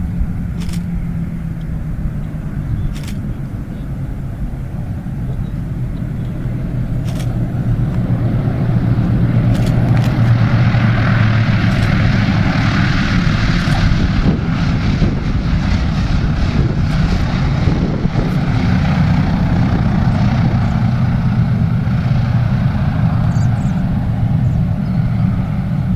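Piston engines and propellers of a vintage World War II warplane running steadily, growing louder about six to ten seconds in and staying loud.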